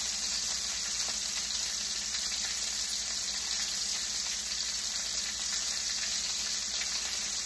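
Steak frying in a pan, sizzling with a steady hiss.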